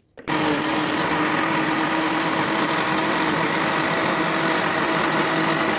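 Electric countertop blender switched on just after the start, its motor then running steadily as it blends a runny mix of coconut milk and pineapple chunks.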